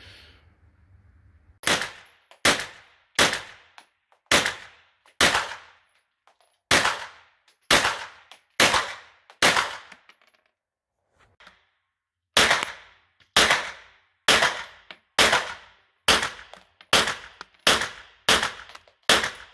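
Semi-automatic 9mm AR-15-style carbines firing single shots, each with a short echo in a covered shooting range. There are two strings of about ten shots, roughly one a second, with a pause of about three seconds between them. The second string speeds up near the end.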